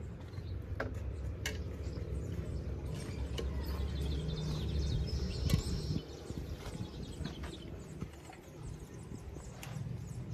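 Scattered light metallic clinks of a ladle against a metal cooking pot and steel plates as food is served, over a low rumble that drops away about six seconds in. A brief high chirp sounds about halfway through.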